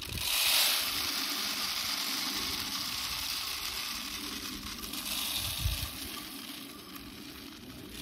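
Bird seed pouring from a plastic tub: a steady hissing rattle of seeds, loudest about half a second in and easing slightly toward the end.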